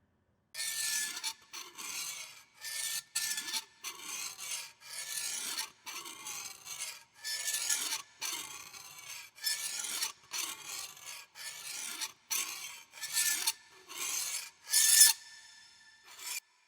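Repeated rasping strokes, like a file or saw drawn back and forth, about three every two seconds. The loudest stroke comes near the end, followed after a short gap by one brief last stroke.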